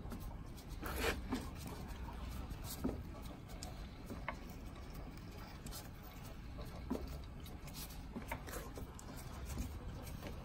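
Multi-slide wire-forming machine being turned over by hand, its cams and slides giving scattered light clicks and knocks at no steady rhythm. The mechanism turns freely.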